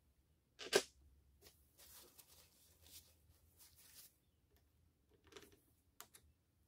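Workbench handling noises: a sharp clack, then a few seconds of scraping and rustling, and two light clicks near the end, as small parts of a cordless drill are handled during disassembly and cleaning.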